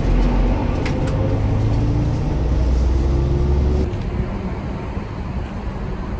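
Car on the move: a steady low engine and road rumble, with the engine note rising slowly. The rumble eases about four seconds in.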